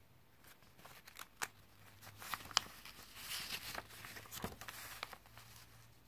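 Pages of a small paper booklet being handled and turned: paper rustling with several sharp clicks, the loudest about two and a half seconds in, dying away after about five seconds.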